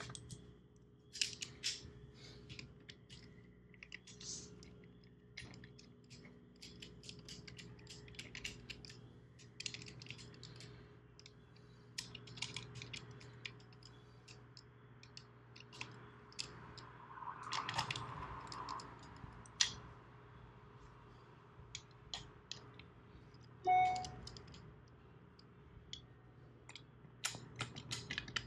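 Scattered light metallic clicks and taps of steel bolts being handled and threaded in by hand into the lower cover (oil pan) of a Sea-Doo Spark engine, to seat the cover on its new gasket. One brief ringing metal clink stands out about three quarters of the way through.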